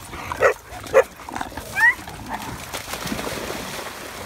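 A dog barks three times in quick succession in the first two seconds, the last bark rising in pitch, followed by steady splashing as dogs run through shallow water.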